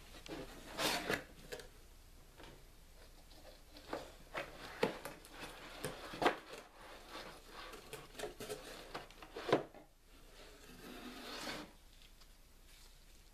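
Cardboard box being handled: the lid is flipped open with a scraping rub about a second in, then scattered knocks, taps and rustles as the metal replica gun is lifted out of its moulded pulp insert, with a last stretch of rubbing near the end.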